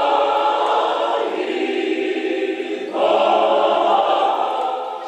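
A group of voices singing together, with a louder fresh phrase coming in about three seconds in.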